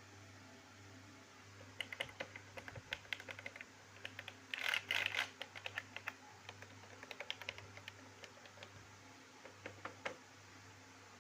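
Rapid light clicks and taps in uneven bursts, with a dense flurry about halfway through, over a steady low hum.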